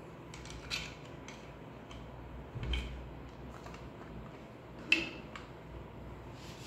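Resin statue parts being handled and fitted together: a few light clicks and knocks of hard pieces against each other, the sharpest about five seconds in.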